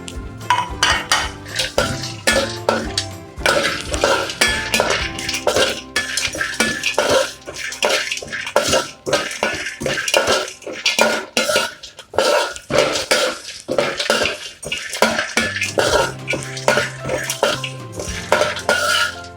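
Thin-sliced dried coconut being stirred as it roasts in a pan, the spatula scraping and clinking against the pan in quick, irregular strokes.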